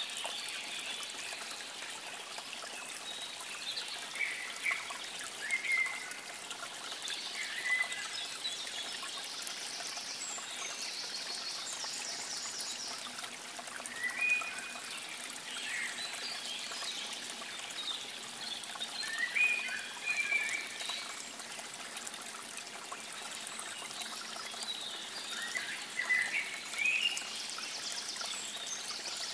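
Running water trickling steadily, with birds singing short chirping phrases every few seconds and a rapid high trill now and then.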